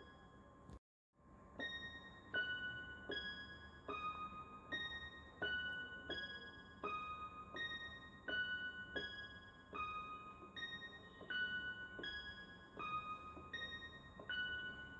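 Background music: a simple piano tune of single high notes, one about every three-quarters of a second, with a brief drop-out about a second in.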